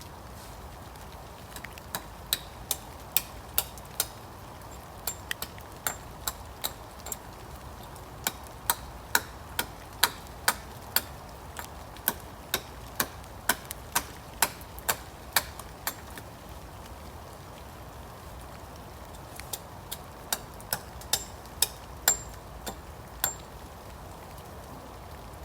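Hammer driving nails into timber: three runs of sharp, regular strikes, about two a second, over a steady hiss of rain.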